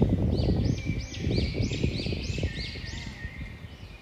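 A bird calling a quick series of about nine rising-and-falling notes, roughly three a second, growing fainter towards the end, over a low rumbling noise.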